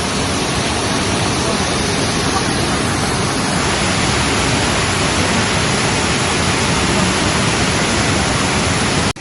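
Waterfall close by: a loud, steady rush of falling water, cutting off suddenly near the end.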